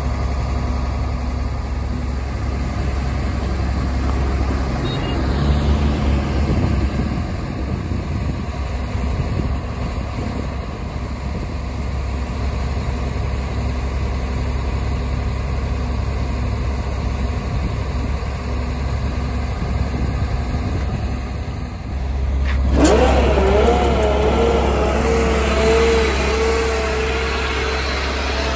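Inline-six diesel engine of a MAN TGA 32.360 mixer truck running steadily while its conveyor boom is worked. About 22 seconds in, a click and then a louder whine that wavers in pitch before holding steady join the engine sound.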